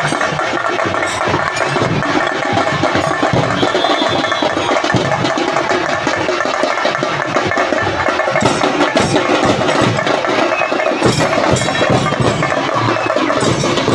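A marching troupe beating large barrel drums together in a steady, loud, continuous beat.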